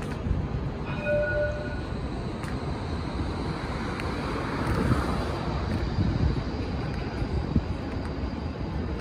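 Melbourne tram running, heard from on board: a steady rumble of wheels on the rails, with a short ringing tone about a second in and a swell of hiss around the middle.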